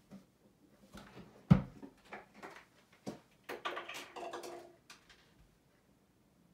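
Scattered off-camera household knocks and clicks from someone looking for something, with one loud thud about a second and a half in and a brief pitched sound around four seconds, then quiet.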